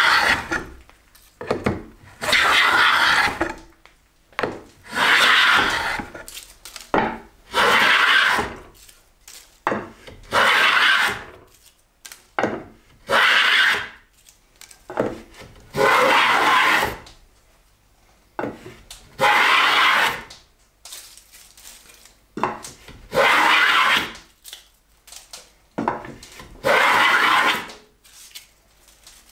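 Hand plane taking long shavings off a poplar board: about ten separate push strokes, each a second or so of rasping swish, every two to three seconds.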